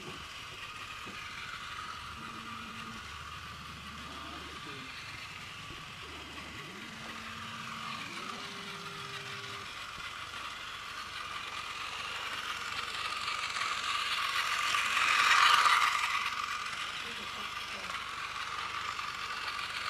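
Battery-powered Plarail toy train's small electric motor and plastic gearbox whirring steadily as it runs on plastic track. The whir grows louder, peaks about fifteen seconds in, then eases off.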